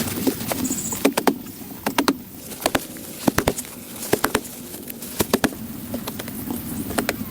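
Irregular sharp knocks of hand-tool work, about a dozen of them, several coming in quick pairs.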